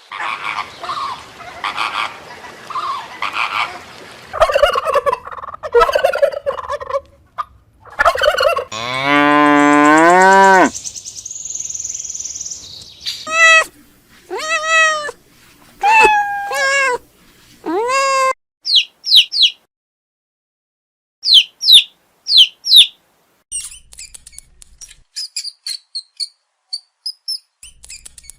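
A run of different animal calls, one after another. First comes a rough, rapidly repeated calling, then a long low pitched call about nine seconds in, then a series of five shorter pitched calls. It ends with short high chirps and faint twittering.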